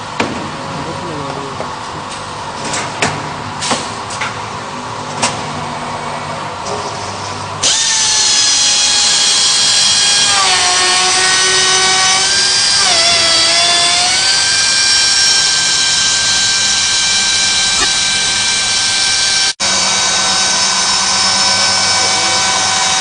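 CNC corner cleaning machine for uPVC window frames: a few sharp clacks in the first seconds, then about eight seconds in its cutter spindles start with a loud high whine. The pitch dips and wavers for a few seconds as the cutters work the frame corner, then holds steady.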